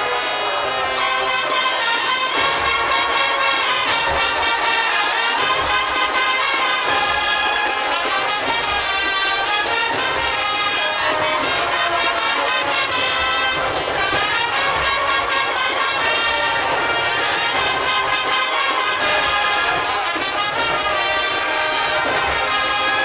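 An agrupación musical, a Spanish Holy Week band of trumpets, cornets and trombones over drums, playing a processional march. The brass carries a sustained melody over a steady drum beat.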